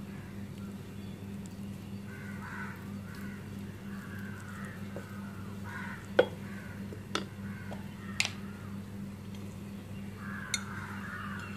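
Wooden spatula mixing cooked rice in an aluminium pressure cooker, with a few sharp taps against the pot, the loudest about six seconds in and others near seven, eight and ten seconds. A steady low hum sits underneath, and several short harsh calls sound in the background.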